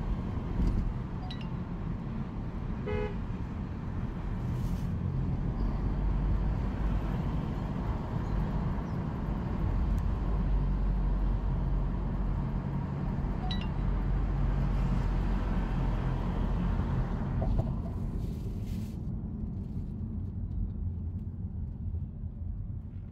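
A car driving steadily, with a continuous low rumble of engine and road noise. Brief high-pitched tones sound about a second in, about three seconds in, and again near the middle.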